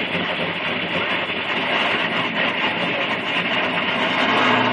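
Cars idling at a street-race start line, a steady rumbling noise with no revs or launch.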